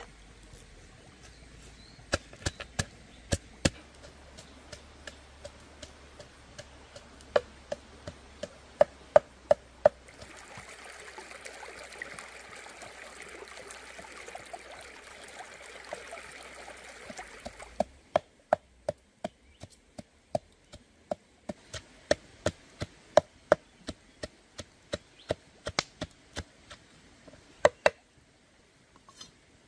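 Chopping: a blade striking a wooden surface in runs of sharp knocks, about two to three a second. A steady hiss runs under the knocks for several seconds in the middle.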